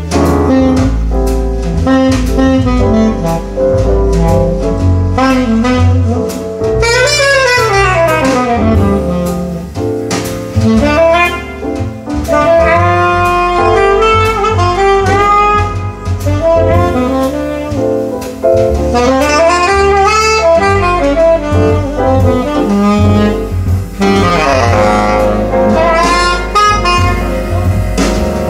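Jazz music with no singing: a saxophone solo running up and down in long phrases, over double bass and drums.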